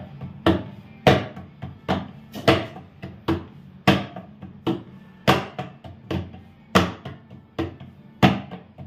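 Hands patting ragi (finger millet) roti dough flat on a wooden board: sharp palm slaps at an even pace of about two a second.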